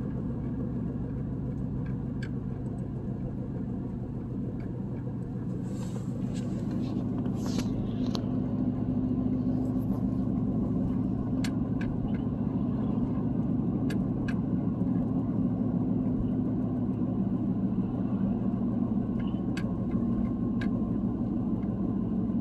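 Car cabin noise while driving: a steady low drone of engine and tyres on the road, getting a little louder about a quarter of the way in, with a few faint clicks.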